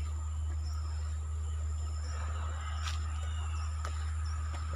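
Countryside ambience: small birds give short, faint chirps now and then over steady high-pitched insect buzzing and a constant low hum.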